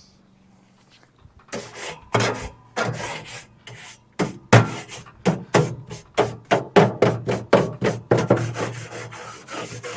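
Rhythmic scraping strokes, starting about a second and a half in at about two a second and quickening to about three a second.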